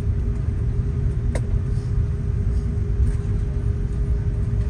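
Cabin noise of an Airbus A330-300 taxiing after landing: a steady low rumble with a constant hum, and a single faint click about a second and a half in.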